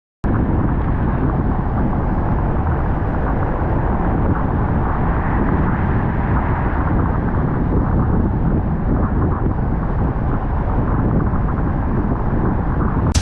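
Steady low rumble of a car being driven, heard from inside the cabin: road and engine noise with no distinct events. It cuts in abruptly just after the start.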